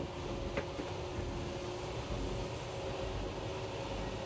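RV slide-out room motor running steadily as the slide extends, a mechanical hum with one short click about half a second in.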